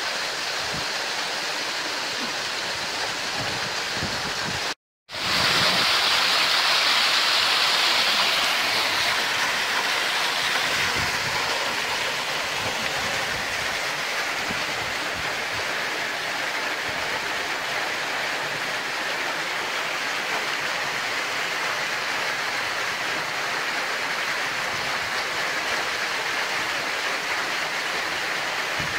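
Waterfall water pouring into a granite pool, a steady rushing hiss. It cuts out for a moment about five seconds in, comes back louder and higher, then settles.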